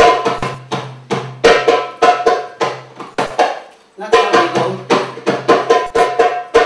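Live stage music: a fast rhythm of sharp plucked or struck notes with percussion over a steady low drone. It starts abruptly, breaks off briefly just before four seconds in, then picks up again.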